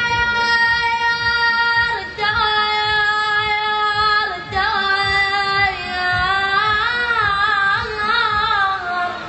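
A high voice singing unaccompanied. It holds one long note, steps down about two seconds in and again near four seconds, then winds through wavering, ornamented turns that slide lower toward the end.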